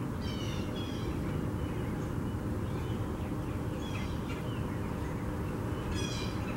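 Chalk scratching and squeaking on a chalkboard in short strokes as a word is written, three brief squeaky bursts over a steady low background rumble.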